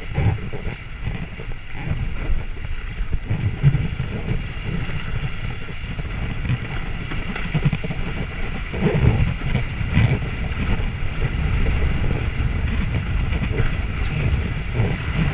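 Wind buffeting the microphone in an uneven, gusting rumble while a windsurf board sails along, with a fainter hiss of water rushing past the board.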